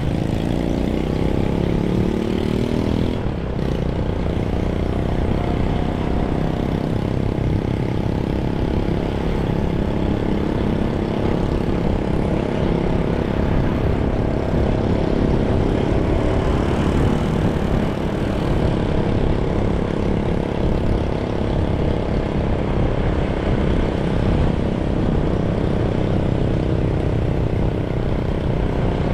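Engine and road noise of a moving vehicle, with a steady low wind rumble on the microphone; the engine's pitch drops in the first few seconds, then holds steady.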